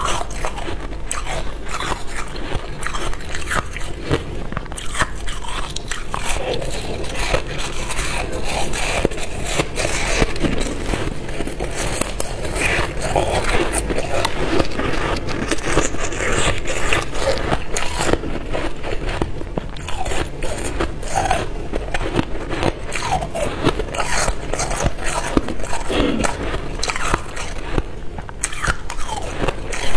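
Chewing and crunching of a mouthful of crunchy white freezer frost ice close to a clip-on microphone: a continuous run of many small crisp crunches and crackles.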